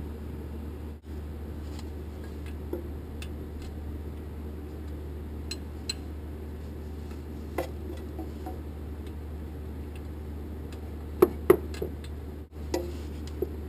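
Wrench clicking against a brake line fitting as it is unscrewed: scattered sharp metallic clicks, the loudest pair a couple of seconds before the end, over a steady low hum.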